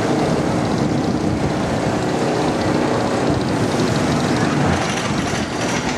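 Steel roller coaster train running along its track: a steady rumble.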